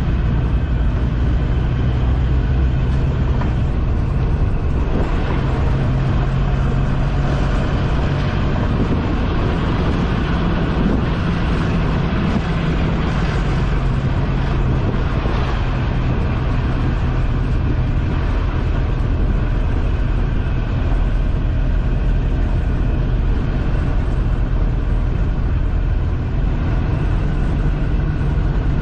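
A songthaew pickup-truck shuttle driving along a road, heard from a passenger seat: a steady engine hum under continuous road and wind noise.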